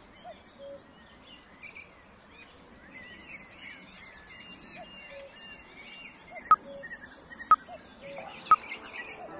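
Forest ambience of many small birds chirping and trilling over a soft hiss. From about six and a half seconds in, a sharp tick sounds once a second: a countdown timer marking the last seconds of the break.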